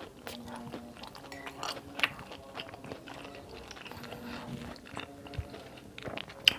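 Close-up eating sounds: chewing, and a metal spoon clinking and scraping in a glass bowl of soupy vegetable curry. There are scattered small clicks, with sharper clinks about two seconds in and near the end.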